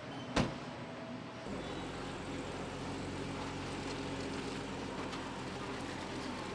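A single sharp knock, then from about a second and a half in a steady low mechanical hum with a few constant tones.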